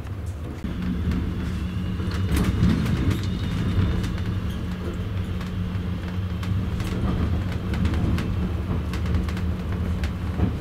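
Interior running noise of a moving double-deck passenger coach: a steady low rumble from the wheels and running gear, with scattered clicks and knocks. A steady hum comes in about a second in.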